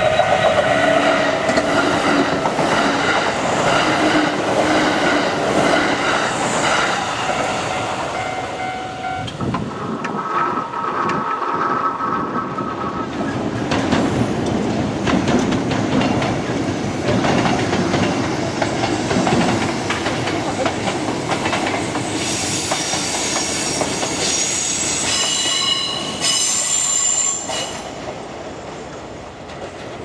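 A Japanese level-crossing alarm bell rings as a Kintetsu Osaka Line electric train runs past, its wheels clattering over the rail joints. Train noise continues afterwards, and near the end the wheels squeal with high tones for several seconds before the sound fades.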